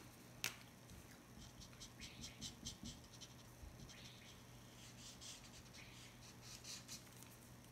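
Faint, scratchy strokes of a marker tip drawn across tracing paper, coming in quick runs of short strokes with pauses between. A light tap just under half a second in.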